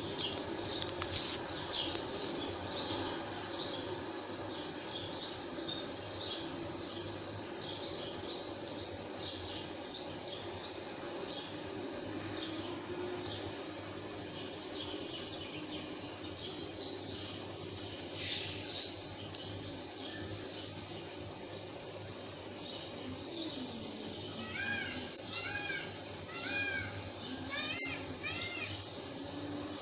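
Birds chirping outdoors: many short high chirps all through, and from about two-thirds of the way in, a run of quick repeated calls that rise and fall.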